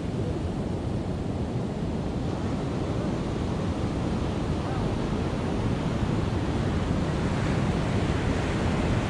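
Ocean surf washing up a sandy beach, a steady rush of breaking waves, with wind on the microphone. It grows a little louder toward the end.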